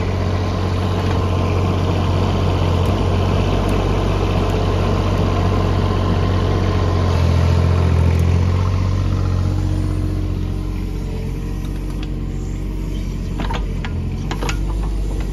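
Doosan DX19 mini excavator's diesel engine running steadily, a little louder around the middle. Near the end, a few sharp clicks as soil and stones drop from the tipped bucket.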